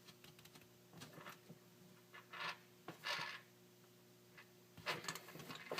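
Faint clicks and brief rustles of thin charger-cable wires being handled as their plastic insulation is pinched off by hand, over a faint steady hum.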